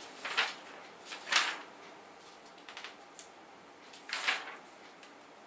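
A few short rustles, about three, with faint light clicks between them: handling noise of someone looking through material.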